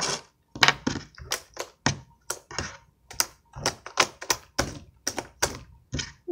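Hands slapping and pressing a soft, sticky homemade slime against a tabletop: a quick, uneven run of squelchy slaps, about three a second.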